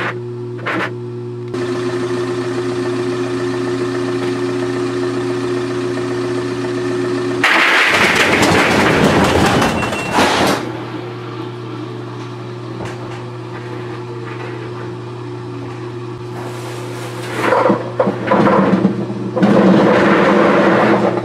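Top-loading washing machine running with a load of golf balls, sped up in time-lapse with the pitch kept: a steady motor hum, broken by loud noisy surges about eight to ten seconds in and again near the end.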